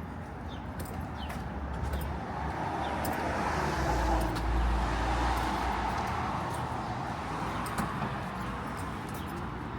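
A car driving past on the street, its tyre and engine noise swelling to a peak about halfway through and then fading away.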